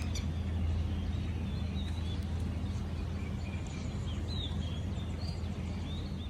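Small birds chirping faintly every now and then over a steady low background rumble of outdoor noise.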